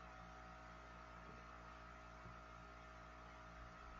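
Near silence with a faint steady electrical hum.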